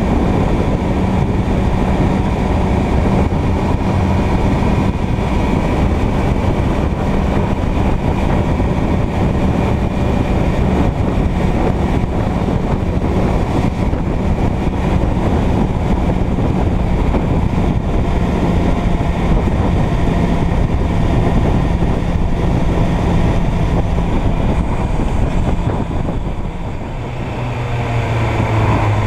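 Suzuki Bandit 600's inline-four engine running steadily at cruising speed, mixed with wind and road rush. Near the end the sound dips and the engine settles to a lower note as the bike slows.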